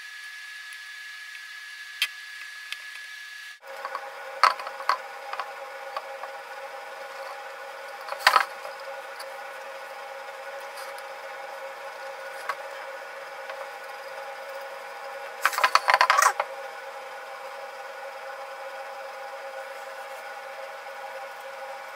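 Scattered taps and clicks as a clay mask and paintbrush are handled on a tabletop, with a quick flurry of clicks about two-thirds of the way through. A steady hum runs underneath and drops in pitch a few seconds in.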